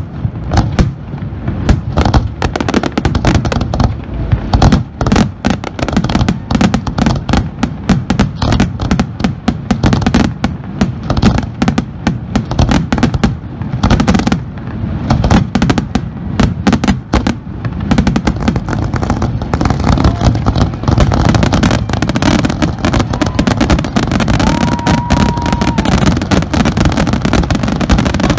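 Aerial fireworks going off in a dense, continuous barrage of overlapping bangs and crackles, thickening into an almost unbroken rumble in the second half. A short steady high tone sounds for a second or so near the end.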